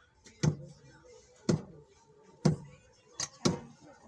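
Bench-mounted hand snap-button press clacking as its lever is pulled down, about once a second, four times, setting metal snap fasteners on cloth. Each stroke is a sharp metal clack with a short low ring.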